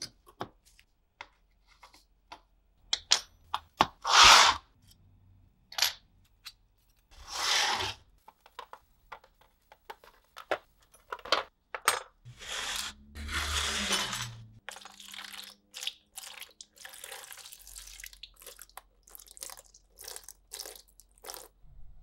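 Work on a rusted pocket knife at a workbench: scattered clicks, taps and knocks of small metal parts and tools, with a few short scraping or rushing noises, the longest about two seconds.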